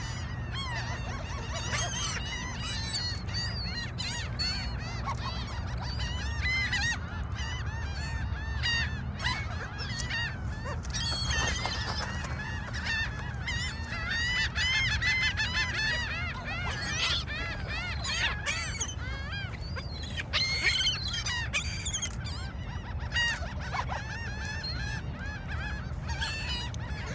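A flock of gulls calling all at once, many short overlapping squawks and cries, over a steady low rumble.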